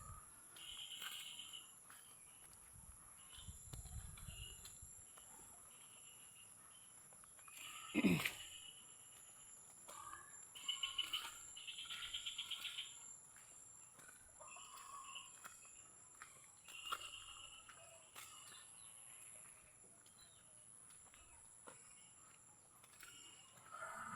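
Rural ambience: a steady high-pitched drone of insects such as crickets or cicadas, with scattered short bird chirps, some in quick runs. One loud call sweeps sharply downward about eight seconds in.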